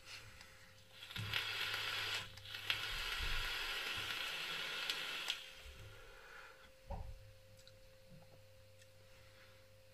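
Vaping on a freshly dripped rebuildable atomizer: air drawn through it with the wetted coil hissing and sizzling, in a short pull and then a longer one of about three seconds, with a few crackles. A short knock about seven seconds in.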